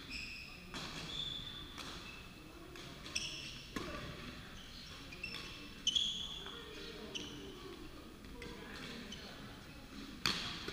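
Badminton doubles rally: sharp racket hits on the shuttlecock at irregular intervals, the loudest about six seconds in and near the end, among short high squeaks of shoes on a wooden sports-hall floor.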